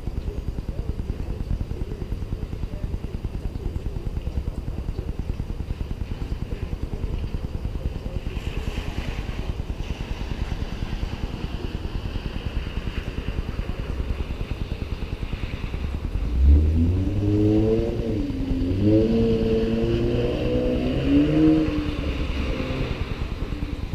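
2010 Nissan Altima Coupe 3.5SR's 3.5-litre V6 through a Borla cat-back exhaust, idling with a steady low rumble, then revved in a few blips about two-thirds of the way in, the pitch rising and falling each time before it settles back to idle.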